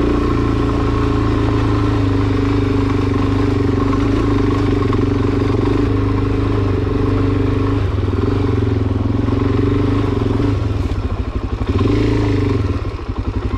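Suzuki DR-Z400SM single-cylinder four-stroke engine, heard from the rider's seat, pulling steadily on a gravel climb, becoming uneven after about eight seconds with a short blip of throttle near twelve seconds, then easing off to a slow, even beat near the end.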